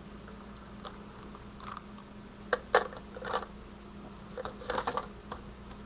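Light clicks and taps of Stampin' Blends markers being handled and set down on a craft table, scattered irregularly over a few seconds, above a faint steady hum.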